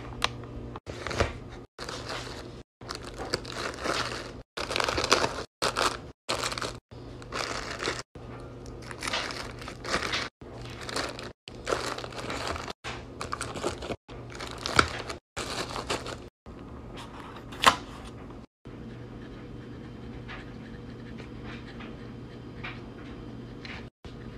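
Handling noises from packing a lunch: plastic packaging crinkling and rustling, containers and food items being set down, in short bursts broken by abrupt cuts, over a steady low hum. The last few seconds are quieter.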